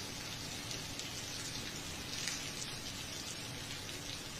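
Rain falling steadily: an even hiss with a few faint drop ticks.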